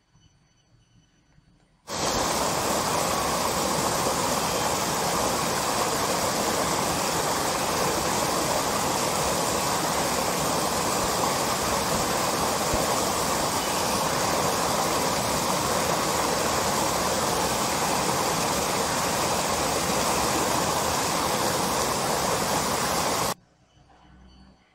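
Fast stream rushing over rocks in white-water rapids. It makes a steady, even rushing sound that starts suddenly about two seconds in and cuts off a little before the end.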